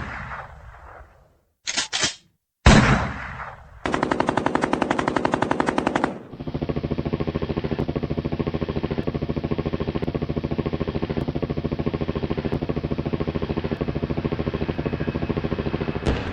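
Recorded gunfire: the tail of a single shot ringing out, a quick group of three shots, another single shot, then a couple of seconds of very rapid automatic fire, followed by a long unbroken stretch of steady rapid machine-gun fire.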